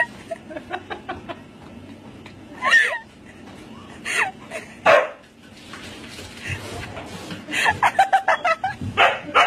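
A husky puppy and an adult husky playing, with short yelps and whines. A person laughs in a quick run of bursts near the end.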